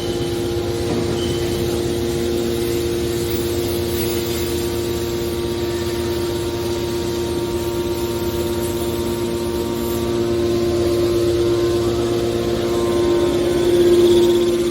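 Hydraulic scrap-metal baler's pump motor running with a steady whine, swelling louder briefly near the end.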